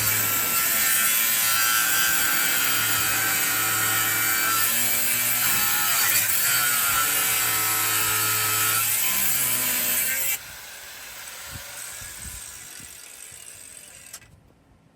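A power tool running under load, likely on the truck's steel frame for the C-notch install, with a steady whining hum that comes and goes; it cuts off abruptly about ten seconds in, leaving a much quieter sound that fades away.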